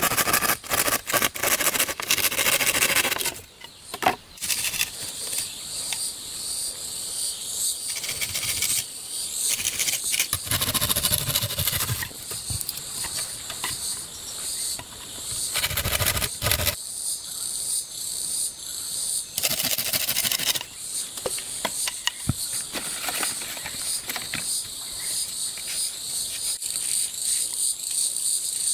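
Crickets chirping steadily in an even, repeating pulse, with several louder bursts of noise in between, the first near the start and others around the middle.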